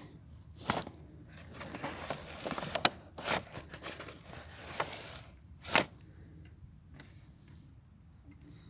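Full plastic water bottles being handled and packed into a cloth tote bag: plastic crinkling and fabric rustling, with about five sharp knocks in the first six seconds, then quieter.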